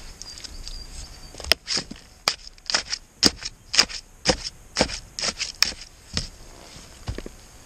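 A shovel pushing loose soil in around a buried plastic drainage pipe: a run of about a dozen sharp scrapes and knocks over some five seconds as the blade and clods strike the pipe and earth, ending in a duller thud.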